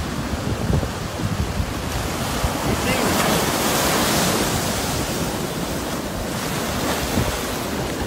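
Small waves breaking and washing in the shallows, with wind rumbling on the microphone. The wash swells to a louder hiss about three seconds in and eases off again by about six seconds.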